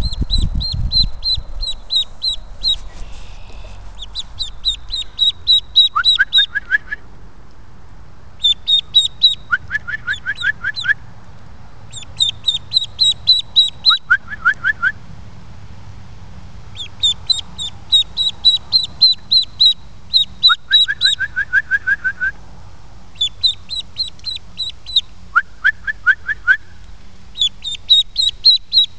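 A lone duckling peeping loudly and fast, in runs of high, falling peeps a few seconds long with short pauses between, plus several short runs of lower rising notes: distress calling of a duckling separated from its brood mates.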